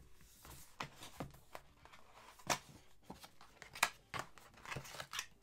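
Cardboard packaging being handled: soft rustling and scraping with scattered clicks and taps, the two sharpest about two and a half and nearly four seconds in, as a boxed item is pulled from its advent calendar compartment.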